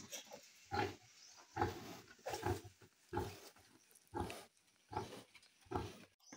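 Sow grunting in a steady rhythm, about eight short grunts evenly spaced a little under a second apart, while her piglets suckle: the rhythmic nursing grunts a sow makes during suckling.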